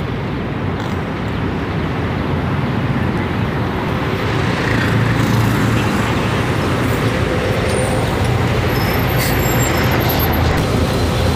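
City bus engine running as the bus pulls in and stops at the kerb, over steady street traffic noise; its low hum grows louder about halfway through as the bus draws alongside.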